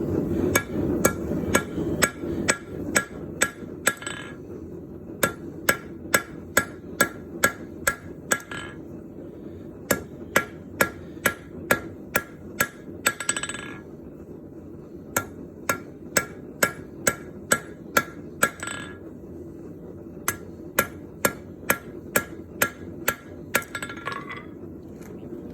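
Hammer blows forging hot bronze, struck about twice a second in five runs of roughly eight to ten blows with short pauses between them. A steady low rush from the forge furnace runs underneath.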